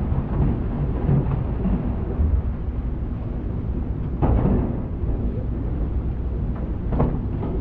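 Passenger ferry's engine running under way, heard on board as a steady low rumble, with two brief louder sounds about four and seven seconds in.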